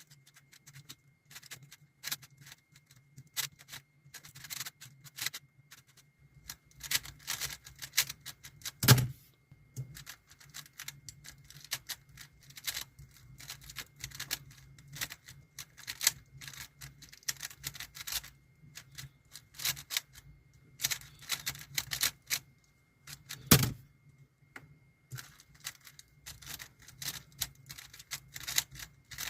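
Tornado V3 Pioneer UV-coated 3x3 speed cube being turned fast in a solve: a rapid, irregular run of plastic clicks and clacks, with two much louder knocks, one about nine seconds in and one near twenty-four seconds.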